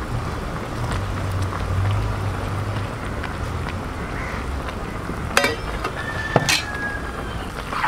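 Low steady background hum that fades about three seconds in, then two sharp metallic clinks of steel utensils about a second apart.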